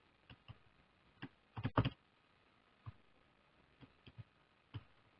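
Slow, irregular keystrokes on a computer keyboard, faint single clicks spaced out, with a louder double knock a little under two seconds in.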